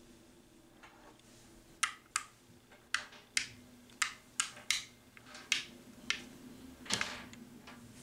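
About a dozen sharp clicks and taps, one at a time at uneven intervals, as small 3D-printed plastic stamps with magnet backings are set down one by one on a wooden tabletop.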